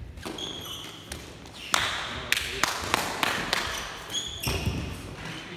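Sneaker squeaks and a quick run of sharp taps on a sports-hall floor, echoing in a large hall, from players moving and kicking in a footbag net (lábtoll-labda) game. The taps come about two to three seconds in, about three a second.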